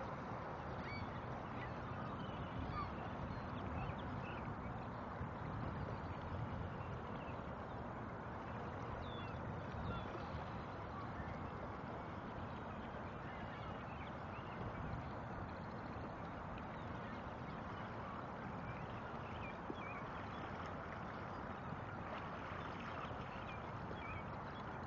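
A flock of waterbirds on open lake water calling, many short calls scattered throughout, over a steady rush of wind and lapping water.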